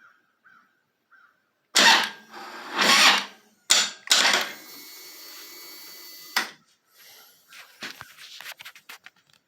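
Harley-Davidson Twin Cam 103 V-twin's starter motor cranking in several loud surges, then spinning more steadily before stopping about six and a half seconds in, with a few light clicks near the end. The engine does not fire: the jump starter is not giving enough current to start it.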